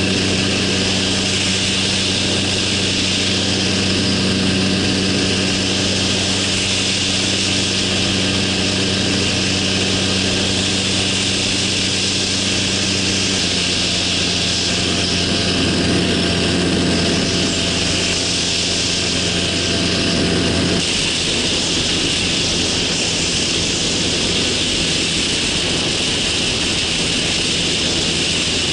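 The small engine and propeller of a motorised hang-glider trike run steadily under heavy wind rush over the wing-mounted microphone. The engine note shifts about halfway through. About three-quarters of the way in, its hum largely drops away, leaving mostly the wind rush.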